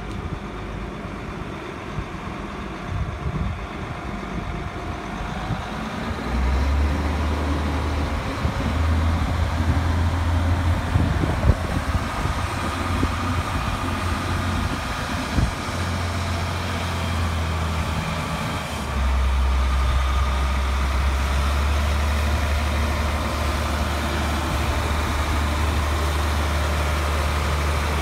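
Ford L8000 floater spray truck's engine running as the truck drives up. Its low, steady drone comes in about six seconds in and grows louder a little after halfway as the truck nears.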